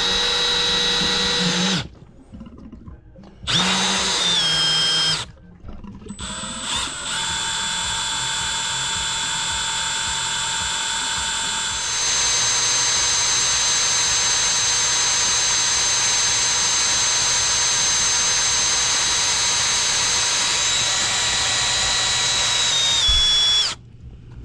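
A Milwaukee cordless drill drives a small drill-powered water pump, pushing water through an air-conditioner condensate drain line to flush it. It starts with two short runs, then one long steady run whose whine gets louder about halfway through and stops shortly before the end.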